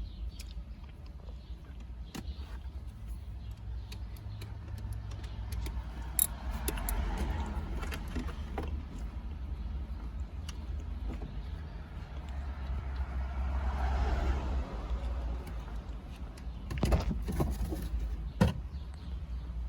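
Hand tools and small metal parts clicking and clinking while bolts are worked loose, over a steady low rumble, with a cluster of sharper knocks near the end.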